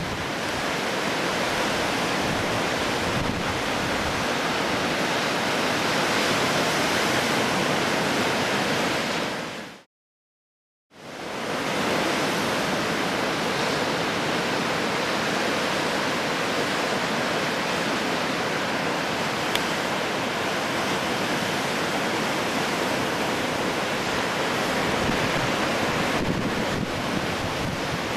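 Steady rush of ocean surf with wind on the microphone. It drops to silence for about a second near the middle, then resumes.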